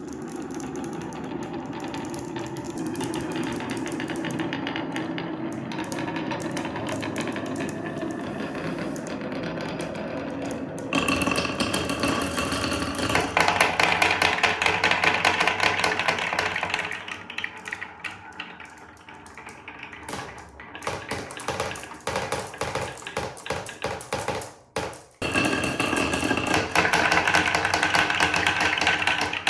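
Marbles rolling and clattering down wooden marble-run slopes: a steady rolling rumble full of quick clicks and knocks. It gets louder about eleven seconds in, thins to scattered knocks in the middle of the second half, and swells again near the end.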